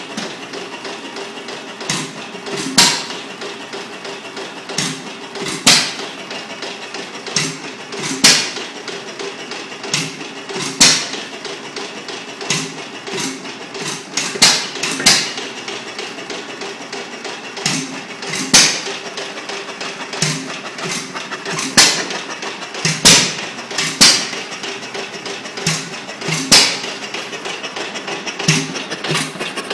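Bentall Kangaroo 4 hp single-cylinder petrol stationary engine running with loud, unevenly spaced firing bangs, roughly one a second, over a steady hum. The engine is running rough.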